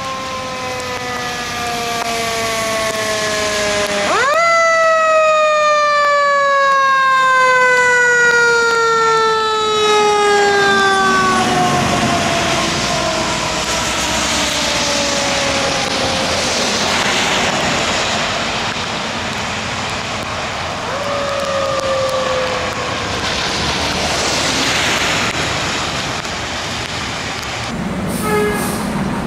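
Fire rescue truck responding with its mechanical siren. The siren is winding down at first, spins up sharply about four seconds in, then coasts down slowly over about eight seconds. It gets a brief second spin-up midway, over the steady noise of the passing truck.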